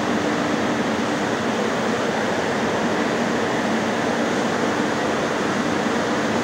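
Industrial corn dryer running: a steady loud rush of air from its fans with a constant low hum in two tones.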